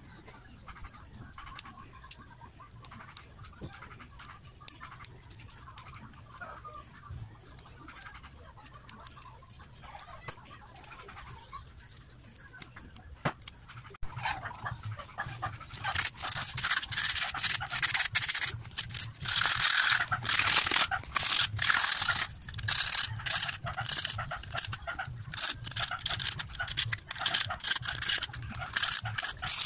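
Faint clicks and rustling as burnt copper winding is pulled out of a Makita electric planer's armature. From about 14 seconds in come loud, rapid scraping strokes as the emptied armature slots are scraped clean of burnt winding and resin before rewinding.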